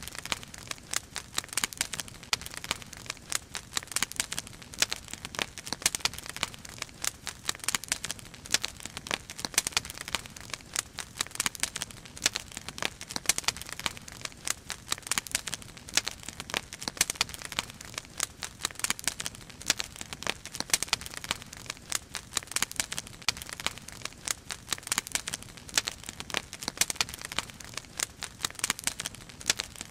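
Firewood burning in an open fire, with a dense, irregular run of sharp crackles and pops.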